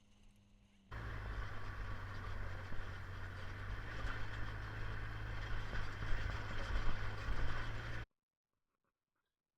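Steady running noise of a vehicle on the move, with a strong low hum. It starts abruptly about a second in and cuts off suddenly near the end.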